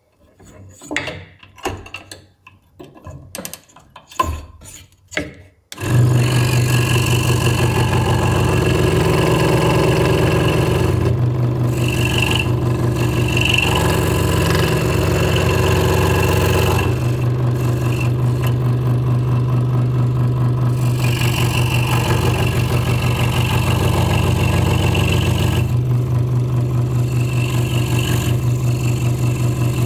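A few light knocks, then a Hegner Multicut 2S scroll saw starts suddenly about six seconds in and runs steadily with a low hum and a rapid even chatter, its blade cutting through a stacked wooden blank.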